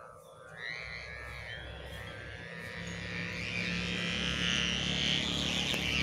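Sendaren kite hummer droning in the wind, a steady buzzing hum that swells gradually louder from about half a second in.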